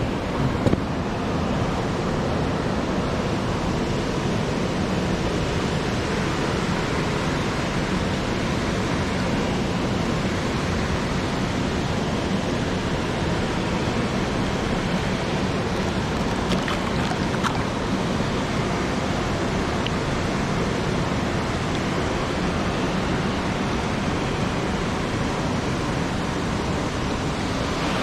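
Steady rush of water spilling over a small weir cascade, an even noise that does not change.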